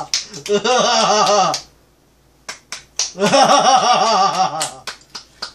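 A woman laughing in rapid, rhythmic ha-ha-ha bursts, with sharp hand claps among them. There are two spells of laughter, each about a second and a half long with a short pause between, and the laughter is the loudest sound; it is laughter-and-clapping therapy.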